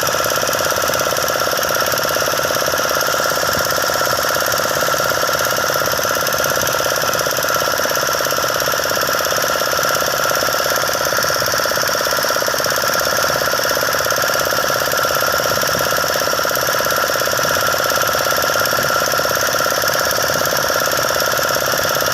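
An engine running steadily at a constant speed, a continuous drone that does not change.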